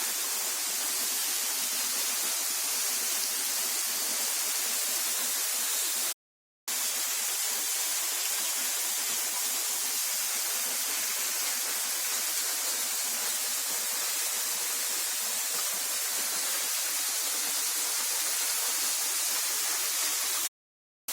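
Waterfall pouring and splashing close by, heard from behind the falling water as a steady rushing hiss. The sound cuts out to total silence twice, briefly about six seconds in and again near the end.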